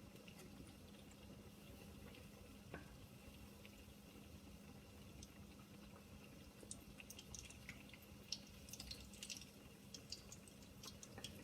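Faint crackle of tuna kebabs frying in oil, with scattered small pops that come more often in the second half, over a low steady hum.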